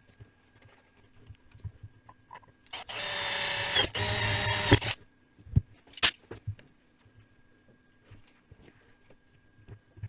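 Cordless drill boring into an aluminium heatsink in two runs of about a second each, with a brief stop between. A sharp clack follows about a second later.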